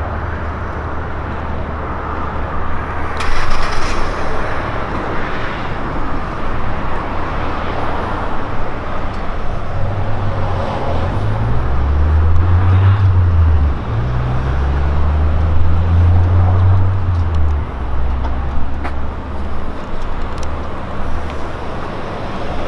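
Road traffic and motor vehicle engines running; a heavy engine rumbles low and shifts in pitch for several seconds around the middle, and a vehicle passes loudly a few seconds in.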